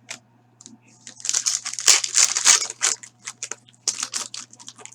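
Trading-card pack wrapper being torn open and crinkled by hand, a dense crackle for about two seconds followed by a few shorter crinkles.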